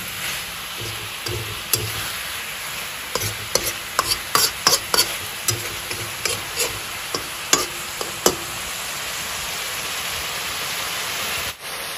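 Goat liver, fat and onions frying in a metal kadai: a steady sizzle, with a metal spatula scraping and clinking against the pan as it is stirred. The knocks are thickest in the middle, and some leave a short ring from the pan.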